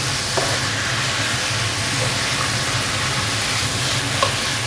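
Chicken pieces and diced peppers sizzling in a frying pan as a spatula pushes them around, with a faint tick or two of the spatula on the pan. Under it runs the steady hum of a cooker-hood extractor fan.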